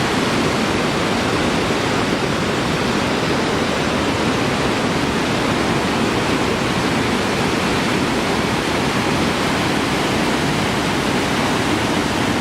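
Panimur Waterfall's falling water making a steady, even rush of white water with no change in level.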